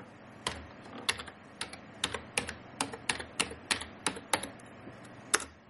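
Typing on a computer keyboard: about a dozen separate key clicks, roughly two a second, as a short command is keyed in. A louder last keystroke near the end enters the command.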